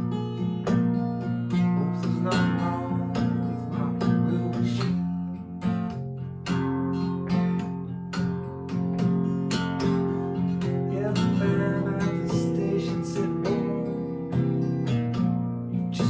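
Blues guitar playing an instrumental break, plucked and strummed notes over a steady bass line, with no singing.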